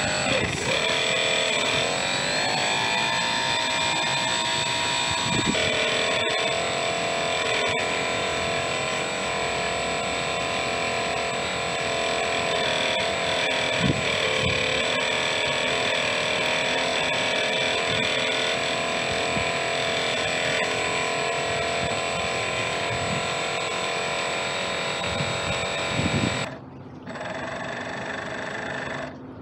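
Model outboard motor of an RC boat running with a steady whine, rising in pitch over the first couple of seconds as it speeds up, then holding steady. The sound drops sharply in level near the end.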